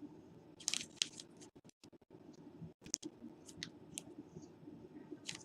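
Trading cards being handled: scattered faint clicks and scraping rustles of cards sliding against one another.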